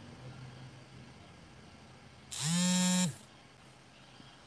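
A phone's vibration motor buzzes once, a little under a second long, about two seconds in. Its pitch slides up as the motor spins up and drops as it stops. The buzz signals an incoming WhatsApp voice call.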